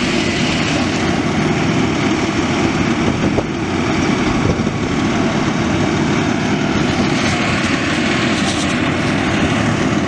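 Loud, steady engine drone that holds at one level.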